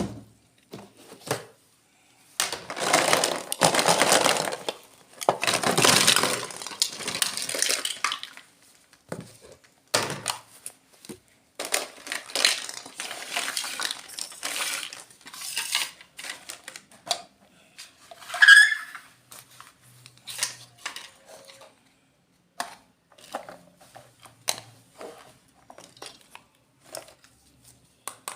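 Unboxing of miniature plastic toy fruits and vegetables: small hard pieces clicking and clacking against each other, with longer stretches of rustling packaging a couple of seconds in and again around the middle, and a brief squeak about two-thirds of the way through.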